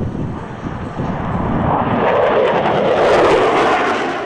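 Aircraft engine noise as a plane flies past, growing louder over about two seconds, then holding steady and loud.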